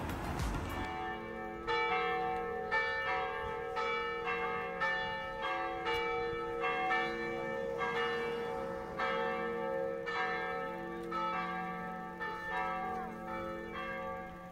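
Church bells ringing in a peal: several bells struck in turn, about two strokes a second, starting about a second in, each stroke ringing on under the next.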